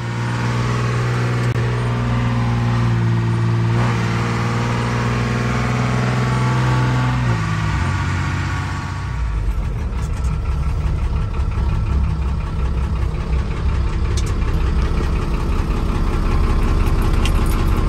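GMC Toro-Flow DH478 diesel engine running through 3-inch straight exhaust pipes while the truck drives. It drones steadily at first, its pitch steps down about seven seconds in, and then a deeper, rougher rumble is heard from inside the cab.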